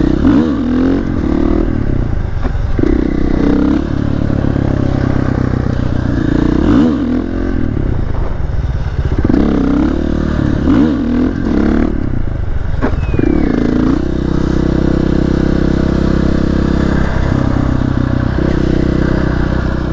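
Supermotard motorcycle engine under way, revving up and dropping back repeatedly through accelerations and gear changes. It settles into a steady pitch for the last several seconds.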